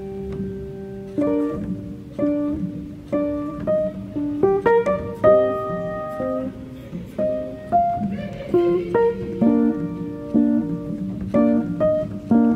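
Background music: an instrumental track of plucked string notes, played singly and in small clusters, each note starting sharply and fading.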